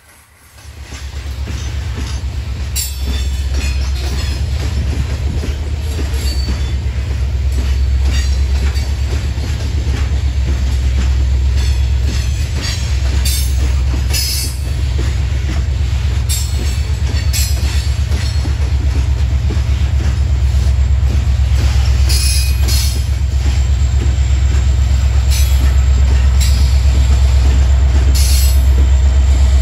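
Loaded coal hopper cars rolling past with a heavy low rumble that comes in about half a second in and slowly grows louder as the train's rear diesel locomotive draws near. Short, high wheel squeals break in again and again over the rumble.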